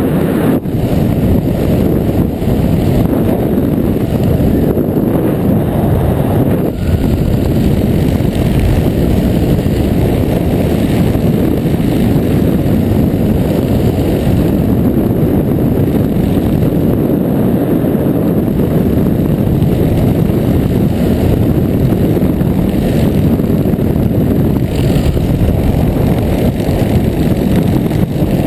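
Wind rushing over a camera microphone in the airflow of a parachute canopy descent: a loud, steady, low rumbling noise.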